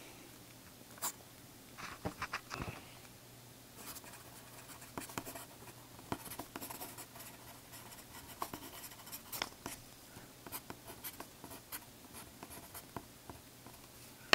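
Pencil writing a signature and initials on paper: short, irregular scratching strokes with brief pauses between them, a few louder ones near the start.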